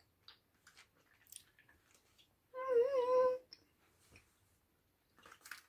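A person hums a wavering, closed-mouth "mmm" of enjoyment, just under a second long, about halfway through, while eating a gummy sweet. Faint small chewing clicks and ticks come before and after it.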